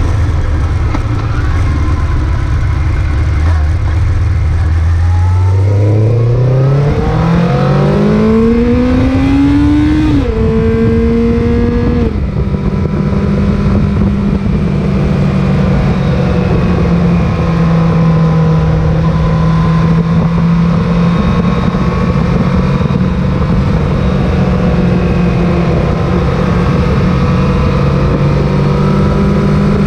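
Sport motorcycle engine heard from the rider's seat, holding a low steady note, then accelerating with rising pitch from about five seconds in. The pitch drops sharply twice, at about ten and twelve seconds, as it shifts up, then it cruises at steady revs with a constant rush of wind.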